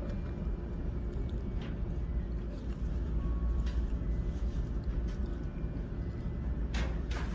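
Steady low drone of a ferry's engines carried through the ship, with a few faint clicks about two, four and seven seconds in.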